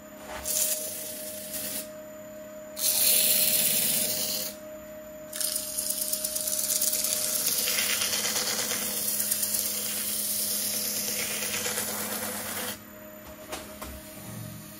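Wood lathe running with a steady hum while abrasive or cloth is pressed against a spinning hawthorn burl and epoxy resin platter, a hissing rub in three stretches, the last and longest about seven seconds, cutting off sharply near the end.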